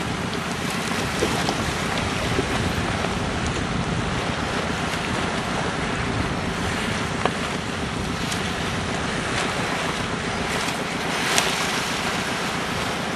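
Steady wind on the microphone over water noise from a moving boat, with a faint steady low hum from the boat's motor. There is a short louder rush about eleven seconds in.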